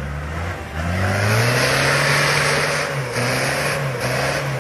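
Toyota off-road 4x4's engine revving hard under load as it climbs a muddy bank. The revs rise about a second in and hold high, dipping briefly twice.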